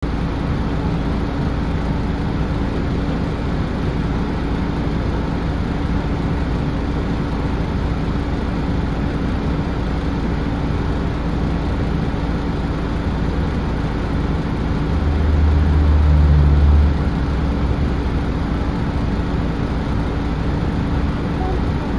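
A 2007 Nissan Diesel Space Runner RP city bus's diesel engine idling at a standstill, heard inside the passenger cabin as a steady hum. About fifteen seconds in, a deeper rumble swells for about two seconds and then drops back.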